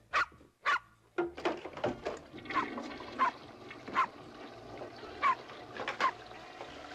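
A small dog yipping over and over in short, sharp yips, each dropping in pitch, under a steady hiss that starts about a second in.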